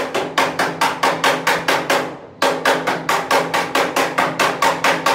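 Rapid, even hammering on metal, about four blows a second, with a short break about two seconds in, over a low steady hum.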